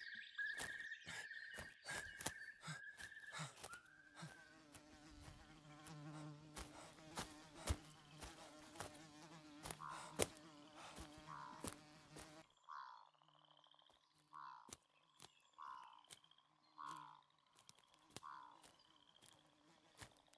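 Faint buzzing of flies, a steady low hum dotted with sharp clicks. In the second half a short call repeats roughly once a second.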